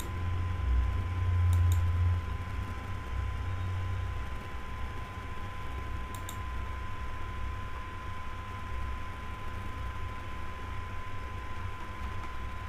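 A few isolated computer mouse clicks, about two seconds in and again about six seconds in, over a steady low hum and a faint constant high whine.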